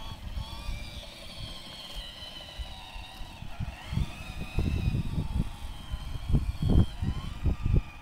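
A homemade R2-D2 replica's electric drive motors whining as it rolls on asphalt, the whine sliding up and down in pitch as the speed changes. Low irregular rumbling thuds come in about halfway through and grow loudest near the end.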